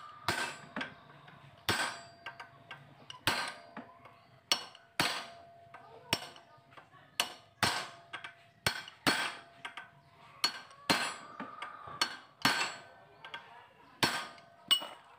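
A hammer strikes a steel drift to drive a new steering-head bearing cup (race) into the head tube of a Yamaha Jupiter Z motorcycle frame. The metal strikes come unevenly, roughly one a second and often in pairs, each with a short ring.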